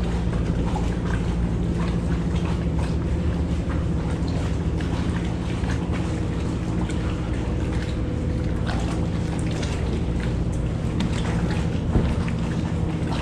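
A steady low hum with many faint, irregular ticks over it, with one sharper knock near the end.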